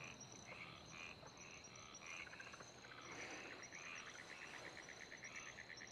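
Faint night-time ambience of chirping insects and frogs: a steady high chirping with short trills, and a longer rapid trill starting about three seconds in.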